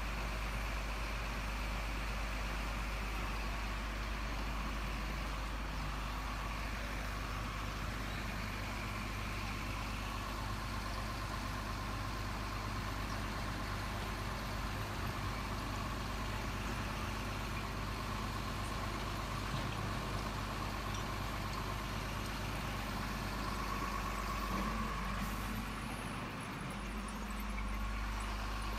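Truck engine idling steadily, with a brief change in pitch near the end.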